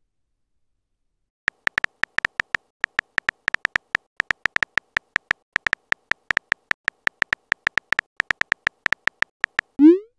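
Phone keyboard typing sound effect: an uneven run of short high beeping taps, several a second, as a text message is typed. Just before the end, a short rising swoop as the message is sent.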